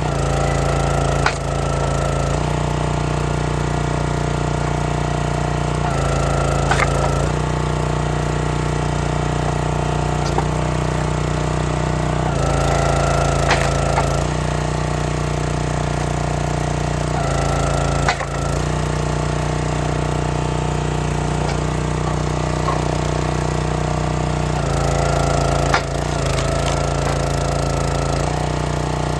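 Engine-driven log splitter running steadily while splitting cherry rounds. About five times the engine note shifts as the ram takes the load, each stroke ending in a sharp crack of the wood giving way.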